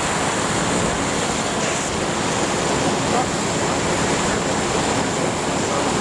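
Water rushing steadily through a channel cut through a dam.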